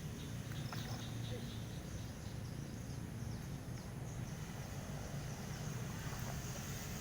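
Outdoor pond-side ambience: a steady low rumble with faint, scattered high-pitched insect chirping.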